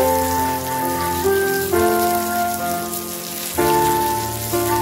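Brinjal halves sizzling and crackling in hot oil in a frying pan, under background music of held notes that change every second or so.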